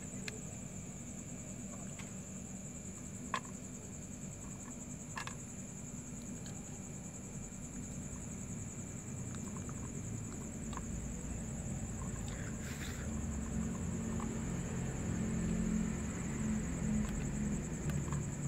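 Steady background noise: a constant high whine and a low hum, with scattered faint clicks. The hum grows louder near the end.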